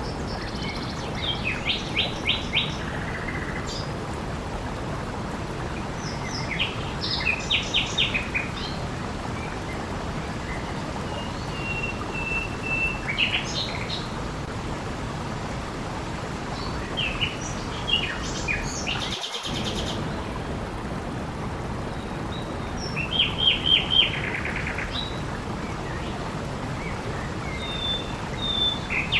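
Steady rush of flowing water with songbirds calling over it: repeated short trills and chirps, and a level whistled note about twelve seconds in.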